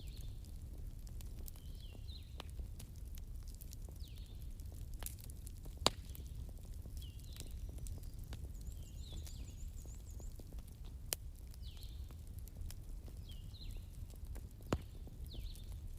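Bonfire crackling over a low rumble, with scattered small snaps and a few louder pops. Faint short high chirps repeat about once a second.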